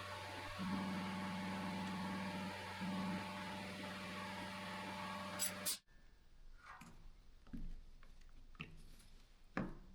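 An air blower running steadily, blowing dust out of an opened DeWalt cordless drill, a hiss of air over a motor hum, with two brief dips. It cuts off suddenly about six seconds in, followed by a few faint clicks and taps of parts being handled.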